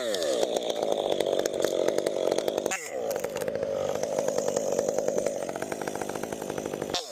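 Chainsaw engine running at high revs, its pitch falling just at the start, then holding steady, with a brief drop and climb in revs about three seconds in.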